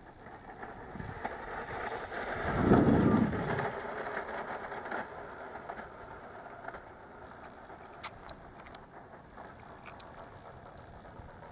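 Habu 32x electric ducted-fan jet rushing past, swelling to its loudest about three seconds in and then fading to a faint hiss. A single sharp click comes near the end.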